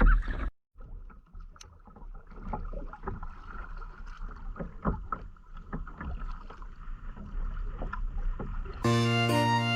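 Kayak paddling on a gently flowing river: irregular splashes and drips as the paddle dips into the water. A keyboard tune comes in near the end.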